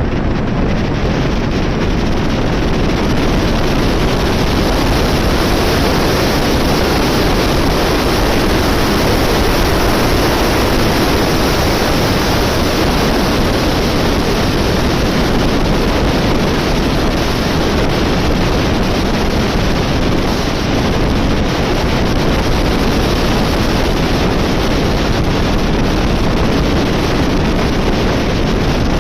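Loud, steady wind noise rushing over the camera microphone of a motorcycle riding at speed, drowning out the engine.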